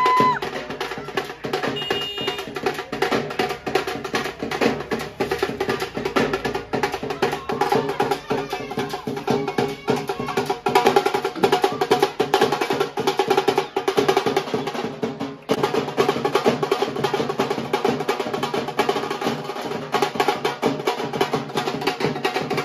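Dhol drum beaten with sticks in a fast, continuous dance rhythm.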